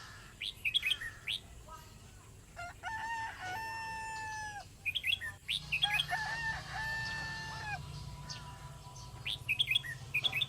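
Birds calling: two long pitched calls a few seconds apart, each ending on a held note, with short bursts of quick high chirps around them.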